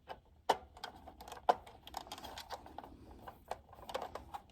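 A small screw being turned by hand with a screwdriver into the plastic casing of a Honeywell Lynx alarm panel to hold the battery in place: irregular light clicks and scrapes, the sharpest about half a second and a second and a half in.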